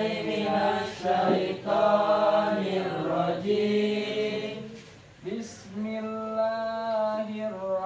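Male voices chanting an Islamic devotional recitation with long held, melismatic notes. The chant breaks off briefly about five seconds in, then resumes.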